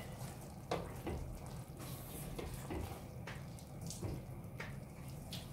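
Butter, sugar and milk syrup simmering and bubbling in a stainless steel pan while a silicone spatula stirs it slowly. Faint steady bubbling with scattered soft ticks of bubbles popping or the spatula touching the pan.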